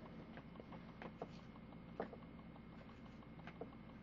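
Faint, irregular light clicks and flicks of baseball trading cards being thumbed off a stack in the hand, the sharpest about two seconds in.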